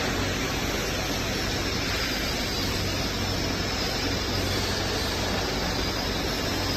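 Steady machine noise from a concentric double-shaft industrial mixer: a constant electric-motor hum under an even rushing noise.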